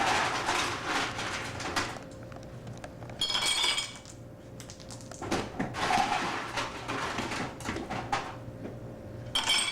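Glasses and bottles being handled while a rum and coke is mixed: a loud rushing hiss at the start, then clinks, knocks and a brief ringing squeak about three seconds in, over a steady faint hum.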